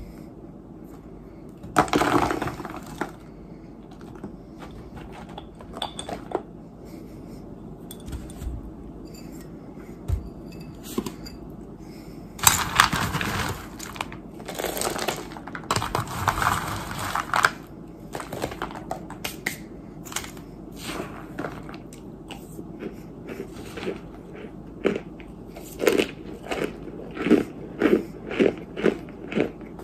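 A plastic spoon clinking and scraping through chalky white chunks and powder in a glass dish, with crushing sounds as the chunks are dug into. Near the end, crunchy chewing of the chalky chunks, about two crunches a second.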